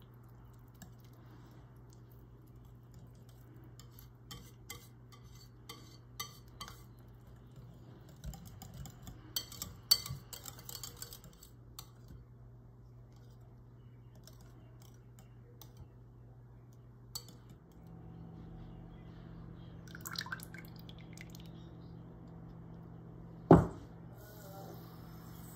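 A wire whisk stirring a thick cream-cheese and strawberry mixture in a glass bowl, its wires clicking against the glass, mostly in the first half. A steady hum runs underneath, and one sharp knock near the end is the loudest sound.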